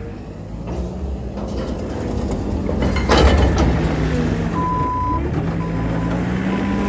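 JCB Loadall telehandler's diesel engine working harder as it drives its bucket into a heap of wood chip, with a loud burst of noise about three seconds in as the bucket bites into the pile. From about halfway through, its reversing alarm beeps as it starts to back out, one long beep and then shorter evenly spaced ones.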